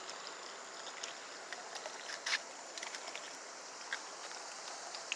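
Small solar-powered fountain running, its water spraying and pattering into a homemade concrete basin: a steady splashing hiss with small irregular splashes.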